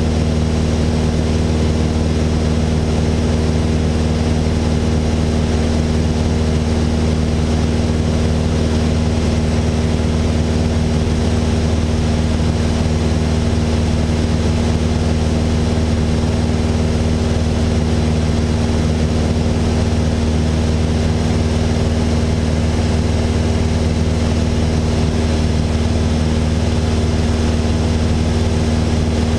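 Cockpit noise of a Mooney M20J 201 in flight: its four-cylinder Lycoming IO-360 engine and propeller drone steadily. The drone holds a deep hum with several steady tones above it, unchanged throughout.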